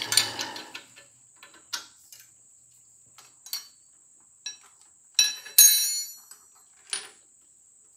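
Scattered metallic clinks and taps of a steel wrench and steel workpiece being handled on a milling machine table, loudest about five and a half seconds in, where a few clanks ring briefly. A faint steady high whine sits under them.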